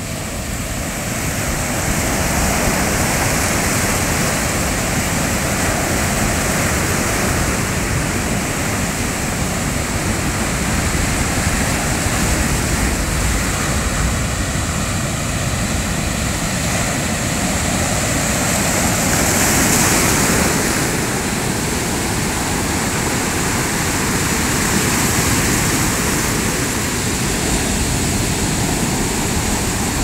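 Sea surf breaking and washing over a pebble beach: a continuous rush of waves and foam. It swells louder a second or two in and again about two-thirds of the way through.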